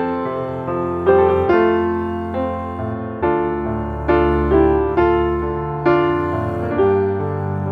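Background piano music: a gentle melody of struck notes and chords, each ringing and fading before the next.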